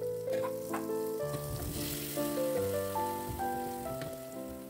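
Ground spice paste sizzling as it fries in hot oil in a pot, with stirring near the end, under background music with a melody of held notes.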